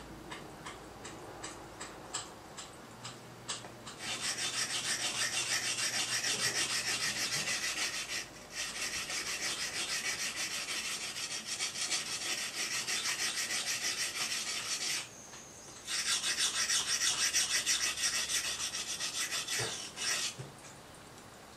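Steel blade of a hand-forged Japanese nata (brush knife) being stroked back and forth on a whetstone: a rhythmic scraping rasp in three long runs, with brief pauses about eight and fifteen seconds in. A few light clicks come first, as the blade and stone are set in place.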